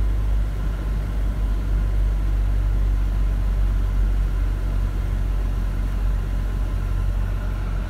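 Mercedes car driving at steady speed, heard from inside the cabin: a constant low rumble of engine and tyre noise.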